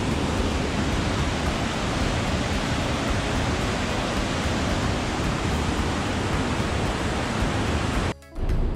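Steady rushing noise of the churning wake behind the stern of the cruise ship Oasis of the Seas. The sound drops out briefly near the end.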